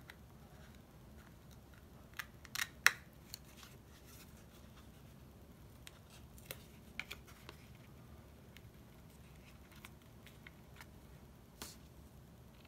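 Folded cardstock card holder being handled and pressed on a tabletop: scattered sharp paper taps and rustles, the loudest cluster about two to three seconds in, a few more around seven seconds and one near the end.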